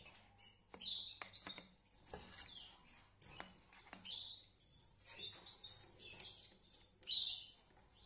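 Canaries chirping in short, repeated calls, the loudest about seven seconds in. A few light clicks come in the first four seconds.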